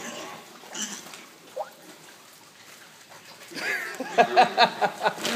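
Pigs feeding on chicken carcasses on a dirt floor, rooting and chewing, with a short rising squeal-like call about a second and a half in. About three and a half seconds in, a louder run of quick, pitched vocal sounds starts, several a second.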